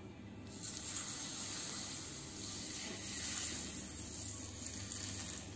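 Hot oil from a pan sizzling as it is poured over the ginger, spring onions and chili on a plate of steamed fish, the finishing step of the dish. The sizzle starts about half a second in, runs steadily and stops near the end.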